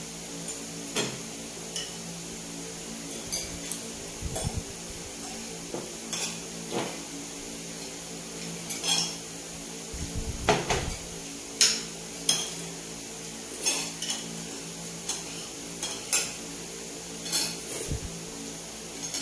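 Cutlery clinking and scraping against a plate while eating, in irregular sharp clinks about once a second, with a few duller knocks, over a steady low hum.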